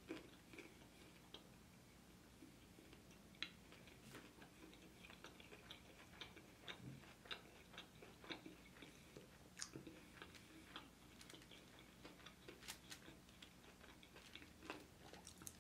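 Faint chewing of boneless chicken wings: soft, irregular wet mouth clicks and crackles close to the microphone, over a faint steady hum.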